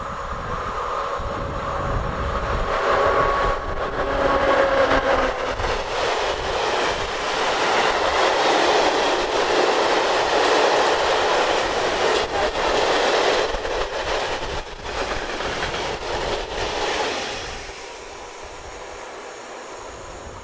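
A ČD Cargo Škoda class 363 electric locomotive passes with a steady whine, followed by a long rake of loaded Talbot hopper wagons rolling and clattering over the rails. The rolling noise drops off sharply near the end as the last wagon passes, leaving wind.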